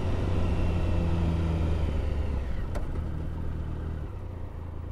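Triumph Tiger 1050's three-cylinder engine running at a steady speed, then easing off and getting quieter about four seconds in. A single sharp click near the middle.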